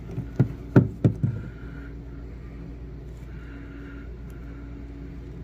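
Several knocks and bumps in the first second or so as a phone is pushed into a drywall hole and rubs against the drywall edge and wooden studs, then a steady low hum.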